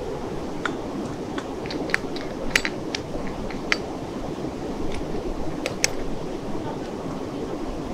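Sharp metal clicks and clinks as the screw clamp of a pressure cooker is set over the lid and turned down tight, over the steady rush of a river.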